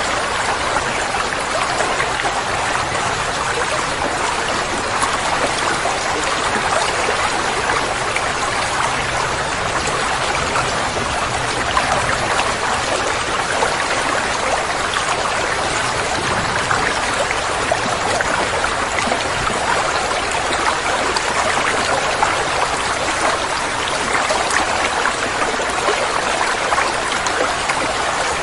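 Koi pond water running and trickling steadily, a dense even splashing like a small waterfall or fountain feeding the pond.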